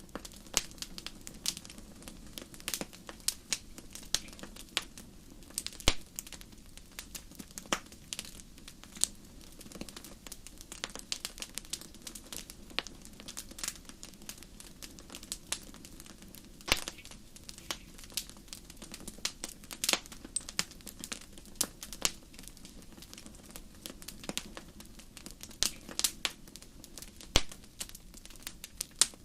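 Wood fire crackling and popping: irregular sharp snaps, a few louder ones, over a low steady rumble of the flames.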